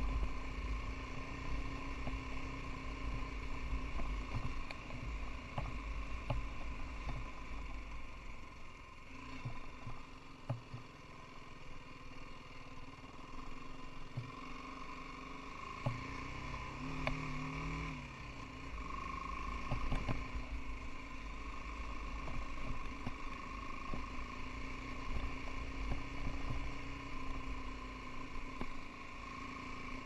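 BMW G 310 GS's single-cylinder engine running steadily at low speed on a rough dirt track, with low rumble and scattered knocks from the bike over the bumps. The engine note shifts briefly about halfway through.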